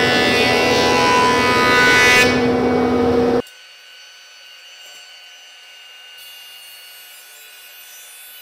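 Ridgid JP0610 benchtop jointer running loud, its motor whine over the rushing noise of the cutterhead knives planing a cupped board flat. The cutting hiss thins about two seconds in as the knives take less wood, and the whole sound cuts off abruptly a little over three seconds in, leaving only a faint steady high hum.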